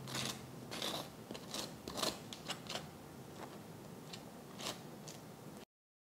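A wooden knife scraping jam across crisp toasted thick-sliced bread, in a series of short rasping strokes. It cuts off suddenly near the end.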